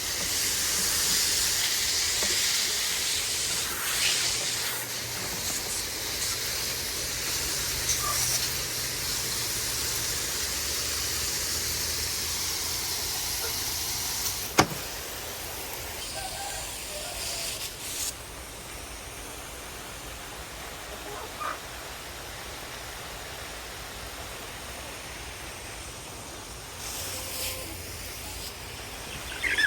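Water spraying from a garden hose in a steady hiss. It eases about halfway through after a sharp click, and a fainter hiss continues.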